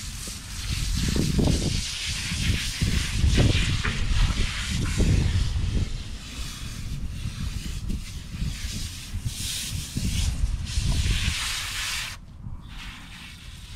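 Garden hose spray nozzle hissing as water sprays onto a large dog's coat and the grass, wetting her down for a bath. The spray cuts off about twelve seconds in. Irregular low rumbles come and go alongside it.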